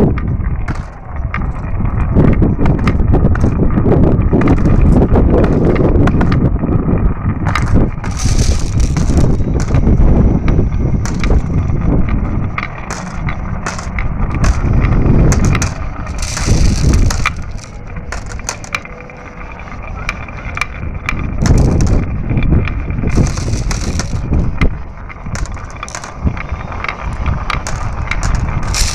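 Marbles rolling down a marble run track: a continuous rumble full of rapid clicks as they knock against the track and each other, swelling and easing as the marbles pass.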